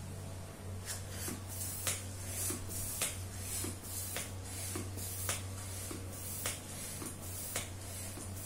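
Hand balloon pump worked in quick strokes, about two a second, each stroke a short hiss of air pushed into a 12-inch heart-shaped latex balloon as it inflates. A steady low hum sits underneath.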